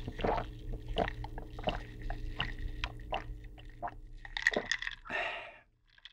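Close-miked gulping as a person drinks an iced dark drink from a glass jar: steady swallows, a little more than one a second, with ice cubes clinking against the glass. Near the end, a short noisy burst of sound as the drinking stops.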